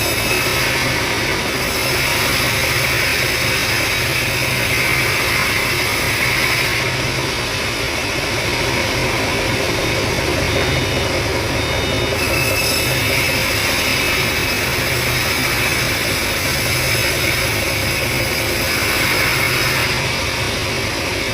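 Band sawmill running steadily, a continuous machine noise with a hissing edge that fades and comes back a few times as it cuts through the wood.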